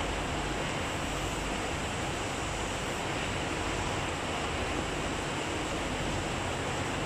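Steady, unchanging rushing noise with a faint low hum underneath: continuous background noise in a workshop. No separate clicks or knocks stand out.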